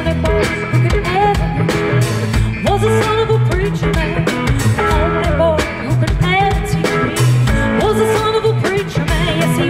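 Live band playing a mid-tempo soul-rock song: drums and a bass line changing notes in steady blocks under electric and acoustic guitars, with a woman's wavering melody line over it.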